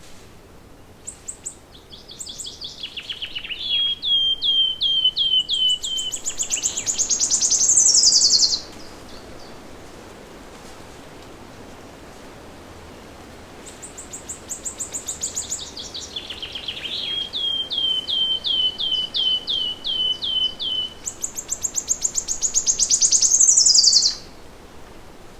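A songbird singing the same long song twice. Each song is a run of repeated high notes that speeds up into a loud, rapid trill, ending abruptly with a downward sweep. A faint steady outdoor hiss lies underneath.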